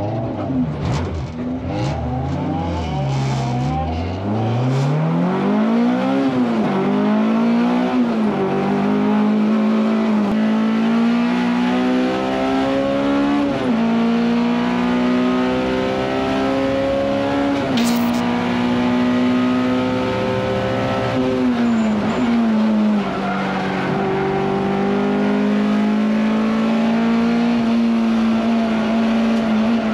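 Honda S2000 race car's engine heard from inside the cabin. It pulls away at low revs, then accelerates hard through the gears, the pitch climbing and dropping back at each of about four upshifts before holding high. About two-thirds of the way through the pitch falls briefly as the car slows, then climbs again.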